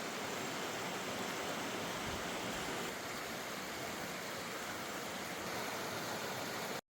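Waterfall rushing steadily, an even wash of falling water that cuts off abruptly near the end.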